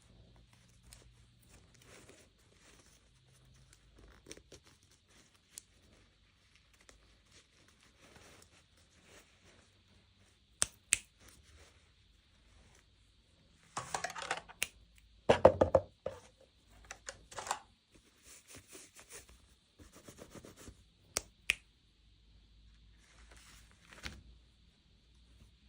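Hands unboxing a miniature toy: quiet handling of the packaging with a few sharp clicks, and a louder noisy stretch of tearing or ripping about fourteen to sixteen seconds in.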